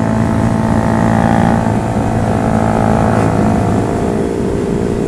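Motorcycle engine running steadily at road speed under wind rush, its note changing a little about halfway through.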